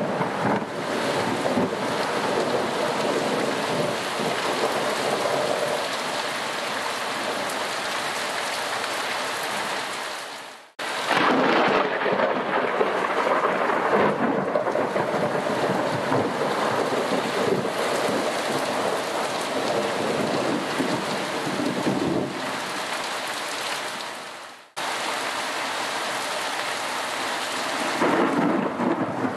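Thunderstorm: rain falling steadily, with thunder. The sound fades away and starts again abruptly twice, about a third of the way through and again shortly before the end.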